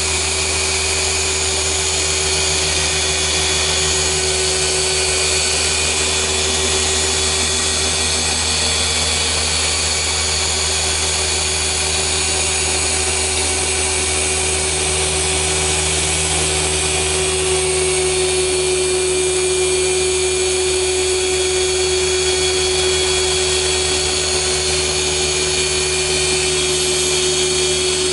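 Rupes BigFoot LHR 15 dual-action polisher running steadily with a foam pad on car paint during defect-correction polishing. The sound is a constant tone over a hiss, with no change in speed.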